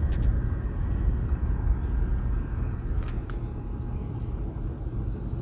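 Steady low rumble of wind buffeting the microphone, with a few small clicks from hands working a lead sinker onto fishing line, the last two about three seconds in.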